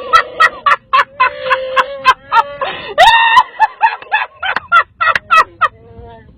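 Electronic Chewbacca mask playing its Wookiee roar again and again as the wearer's mouth moves, mixed with a woman's high-pitched laughter in short, rapid bursts.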